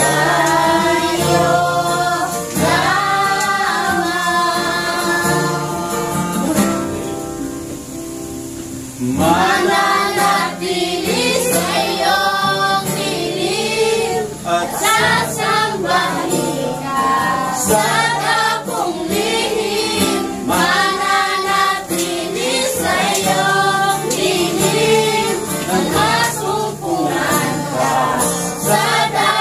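A small congregation singing a Tagalog worship song together over instrumental accompaniment, led by a man on a microphone. The singing drops for a moment about seven seconds in, then picks up again.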